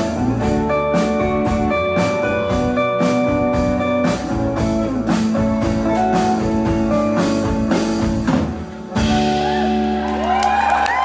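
Live band playing the end of a song: strummed acoustic guitar over a drum kit, closing on a held final chord about nine seconds in. Whoops from the audience break in near the end.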